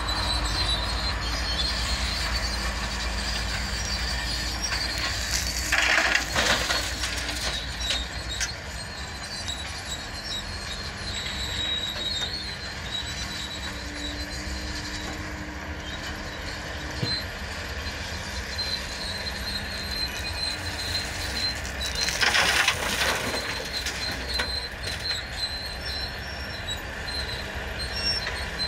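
Doosan DX140W wheeled excavator running steadily as it digs and loads a dump truck: a low diesel rumble with a thin high whine over it. Twice, about a fifth of the way in and again about three-quarters in, a louder rush of noise lasting about a second rises over the engine.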